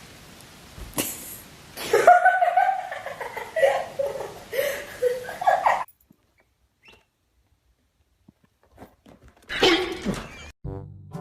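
A high-pitched, wavering vocal call lasting about four seconds, then after a pause a short call falling in pitch. Music starts just before the end.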